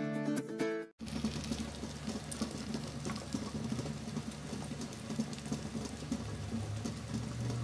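Char siu omelette frying in oil in a nonstick pan: a steady soft sizzle with faint crackles over a low steady hum. Guitar music cuts off about a second in, before the sizzling starts.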